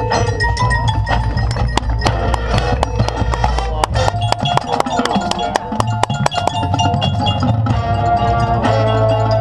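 Marching band playing its field show: sustained band chords and low bass notes over percussion. A dense run of sharp drum and mallet strokes comes in the middle stretch.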